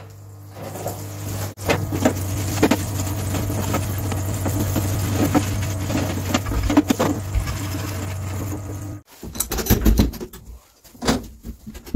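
Parts-washer pump humming steadily while a rear seal plate is scrubbed with a scouring pad and brush in the washer, with rubbing and small knocks; the hum cuts off suddenly about nine seconds in. A few clunks follow from the door latch of a sandblasting cabinet.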